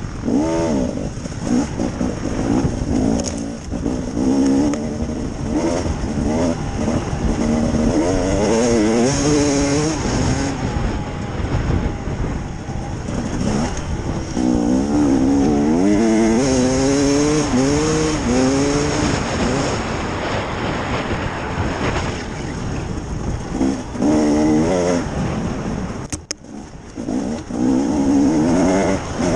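KTM EXC 300 two-stroke single-cylinder enduro motorcycle engine being ridden hard, its revs rising and falling again and again with throttle and gear changes, over a constant rush of wind and track noise. Near the end the sound drops away sharply for a moment before picking up again.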